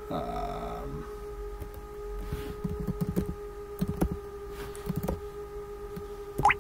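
Computer keyboard keys clicking in scattered, irregular strokes, the loudest near the end, over a steady electrical hum. A short hiss sounds in the first second.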